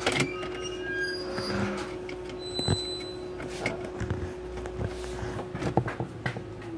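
Scattered clicks and knocks of hand work on a car's centre console around the automatic gear shifter, over a steady hum.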